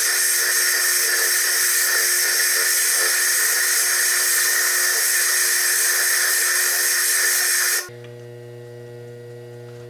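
Foredom bench lathe spinning a core drill against a stone ball under a water drip: a loud, steady, high-pitched grinding hiss over a steady motor tone, played at triple speed. About eight seconds in it cuts off abruptly, leaving a much quieter steady motor hum.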